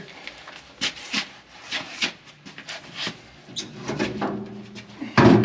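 Steel feederhouse floor plate scraping and knocking against the combine's feederhouse as it is worked into place, a series of short scrapes and clicks, with a louder burst near the end.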